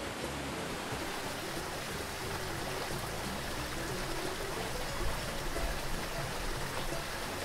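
Steady rushing of a waterfall and fast stream cascading over rocks.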